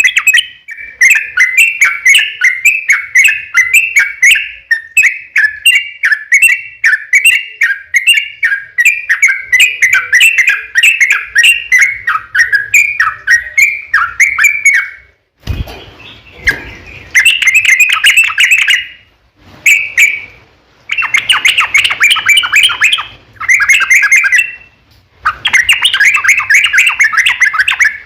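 Yellow-vented bulbul (trucukan) singing a long, rapid chattering song: an unbroken run of fast notes for about fifteen seconds, then shorter bursts separated by brief pauses.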